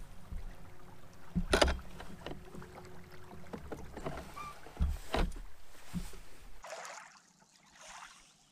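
A kayak moving over choppy lake water with a steady low rumble, broken by a few sharp knocks against the boat. The loudest knock comes about one and a half seconds in. Near the end the rumble stops and only a soft swish of water against the hull is left.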